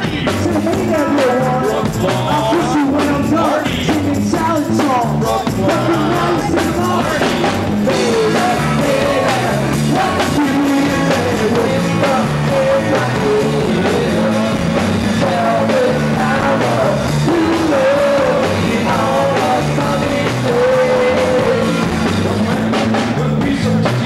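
Rock band playing live: a sung lead vocal over electric guitar and drum kit, steady and loud throughout.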